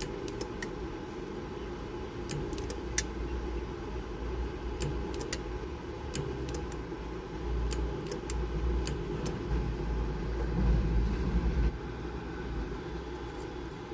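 Homemade microwave-oven-transformer spot welder firing welds on a thin metal strip: sharp clicks and snaps in small clusters, a few at a time, over a steady low hum.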